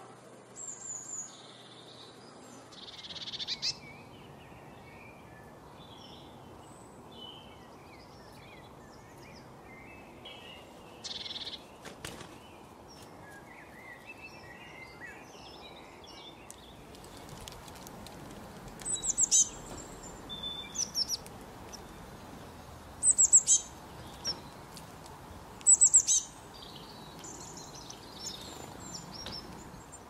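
Several small songbirds chirping and calling, with scattered soft twitters and quick runs of sharp, high notes that stand out three times in the second half.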